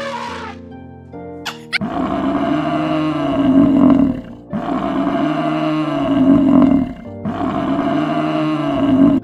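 Three long, deep animal calls of about two and a half seconds each, rising then falling in pitch, over background music.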